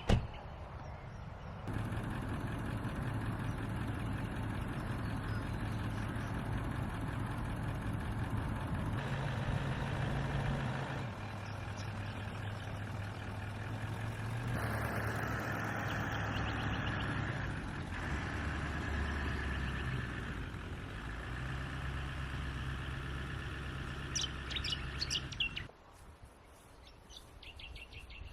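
A motor running steadily, its hum shifting in pitch at several abrupt cuts, with short bird chirps near the end.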